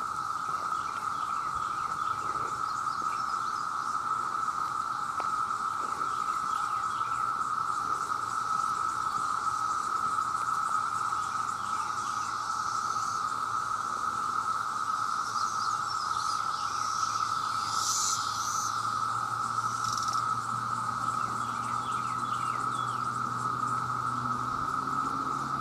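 Chorus of countless male cicadas calling together as a steady, unbroken drone. A few bird chirps rise above it about two-thirds of the way through, and a faint low hum comes in during the second half.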